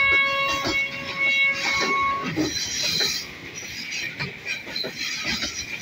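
Freight train wagons rolling on curved track, the wheels squealing shrilly on and off for about the first two seconds, with a steady clatter of wheels over rail joints throughout.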